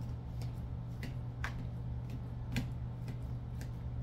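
Gloved hands squeezing and breaking up ripe bananas in a glass bowl: irregular soft ticks and squishes, about ten of them, over a steady low hum.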